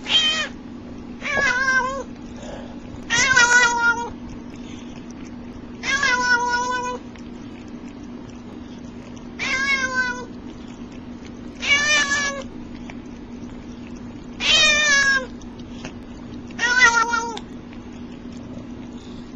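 Domestic cat meowing repeatedly: eight drawn-out meows spaced every two to three seconds, some falling in pitch at the end.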